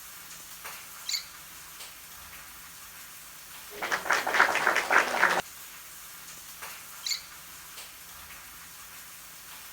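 A bird gives a short high chirp, then a harsh, raspy squawk lasting about a second and a half, then another short chirp.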